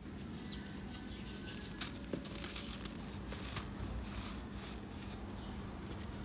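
Dry red dirt clumps crumbling in a hand and sifting through the fingers: a run of gritty crackles and rustles, thickest in the middle. A faint steady hum runs underneath.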